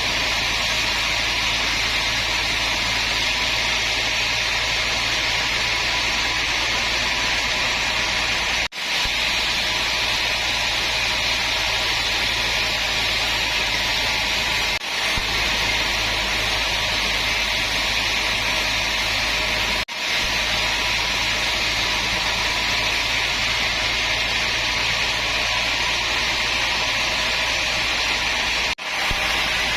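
Woodworking power machine running steadily. It makes an even whirring noise with a constant low hum, broken by four brief sudden gaps.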